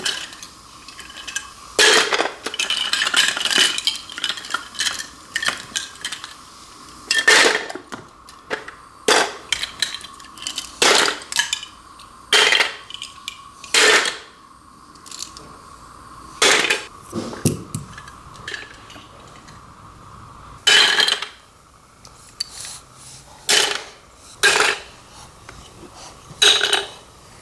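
Plastic LEGO Duplo bricks dropped one at a time into a plastic LEGO storage bowl, clattering irregularly every second or so as the pile is tidied up.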